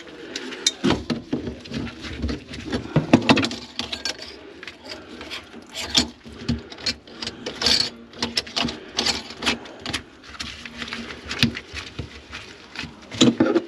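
Irregular clicks, knocks and rattles of a sink's drain P-trap and pipe parts being handled and worked on by hand.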